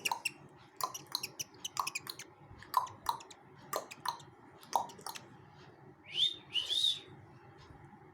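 Pet bird chirping: short sharp clicky chirps about once a second, then two quick rising whistles near the end.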